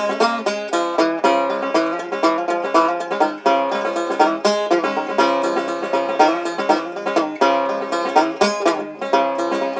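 Background music: an upbeat bluegrass-style banjo tune of quick plucked notes at a steady, even pace.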